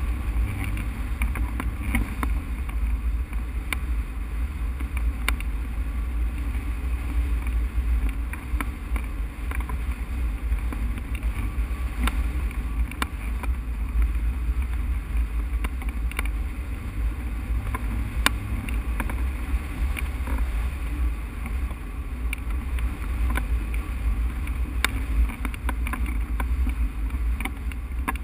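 Wind rushing over a hang glider's microphone in flight: a steady low buffeting rumble, with scattered faint ticks throughout.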